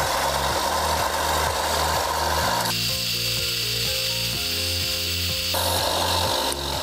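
Belt sander running with a rubber tow-hitch cap pressed against the moving belt, a continuous grinding hiss. The sanding noise turns higher about three seconds in and drops back down near the end as the cap is moved on the belt. A background music bass line runs underneath.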